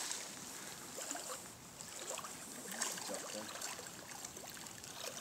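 Shallow stream water running, with faint, scattered light splashes from a hooked rainbow trout thrashing in the shallows.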